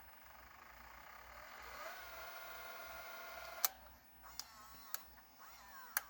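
Tape transport motor of a Sony CCD-V110 Video 8 camcorder winding the tape: a whir that rises into a steady whine, stopped by a sharp button click, followed by a few more clicks of the transport controls.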